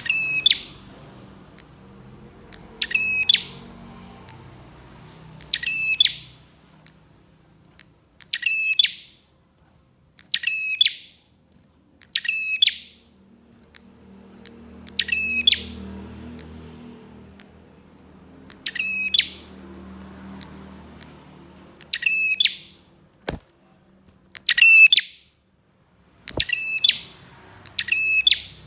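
Prinia (prenjak) calling in short, bright bursts, repeated about every two to three seconds. Two sharp clicks sound in the later part.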